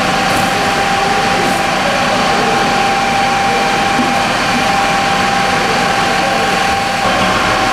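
Fire engine running steadily, a constant engine hum with a steady whine through it.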